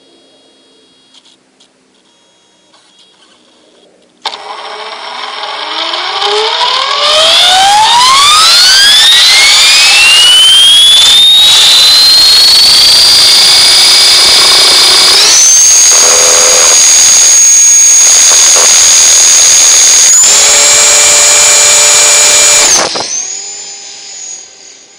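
Align T-REX 500 electric RC helicopter's brushless motor and gear train spooling up for takeoff: a whine starts suddenly and rises steadily in pitch over several seconds, then holds level. It steps higher in pitch twice as the head speed is raised. Near the end it drops to a fainter, more distant whine.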